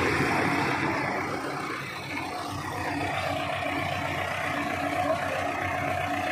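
Old farm tractor's diesel engine running steadily while it pulls a heavily loaded trailer, the load heavy enough to lift the tractor's front wheels. The level dips slightly about two seconds in, then holds steady.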